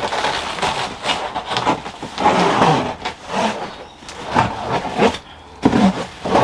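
Plastic stretch-film pallet wrap rustling in short, irregular bursts as it is cut with a knife and pulled away from the bottom of a crate.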